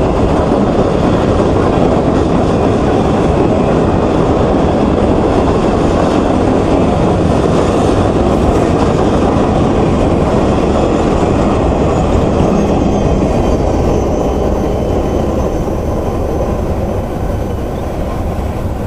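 CSX freight train's cars rolling past at close range, steel wheels running on the rails in a steady rumble. It fades over the last few seconds as the end of the train goes by and draws away.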